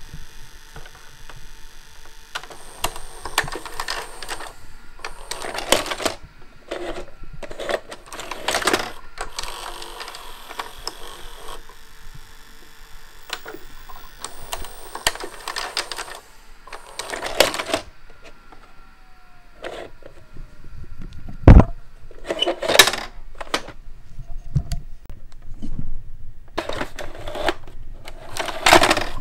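Panasonic NV-HD635 VCR's open tape transport mechanism clicking, clunking and whirring in a string of short bursts, with a sharp click about two-thirds of the way through.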